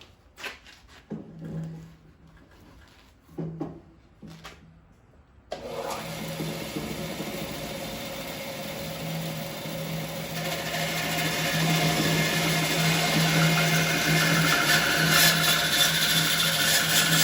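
A few light knocks and short hums, then about five seconds in the Grizzly G0555 14-inch bandsaw comes on suddenly and runs with a steady hum. From about ten seconds the sound grows louder and rougher as the blade cuts into an ash blank.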